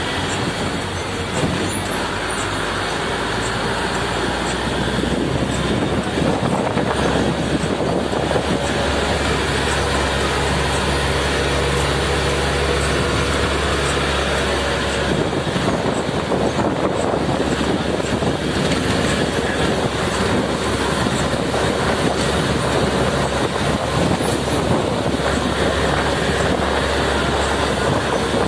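Steady engine drone with road and wind noise, heard from inside a vehicle climbing a mountain road.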